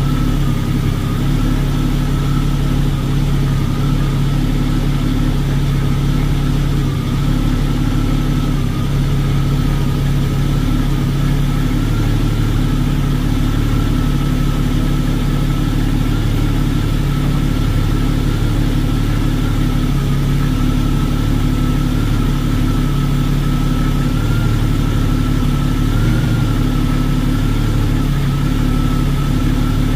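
Inline-six engine of a 1984 AMC Eagle idling steadily on its freshly rebuilt Motorcraft 2150 two-barrel carburettor while the idle is being adjusted. A thin, steady whine sits above the engine sound.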